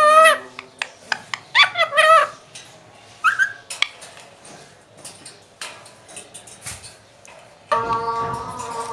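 Indian ringneck parakeet giving three short, loud calls with wavering pitch in the first four seconds, then a few small clicks. A steady held note comes in near the end.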